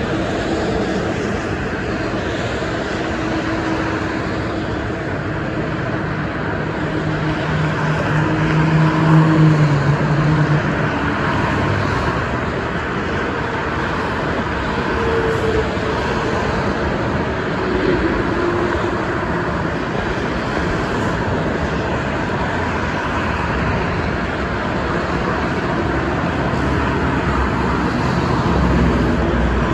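Steady tyre and engine noise of dense multi-lane highway traffic heard from an overpass. It swells about nine seconds in with a low engine drone, and again near the end with a deeper rumble as a tractor-trailer passes below.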